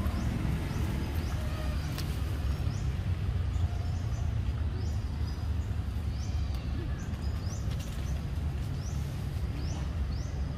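Short high-pitched chirps repeating about once a second, over a steady low rumble.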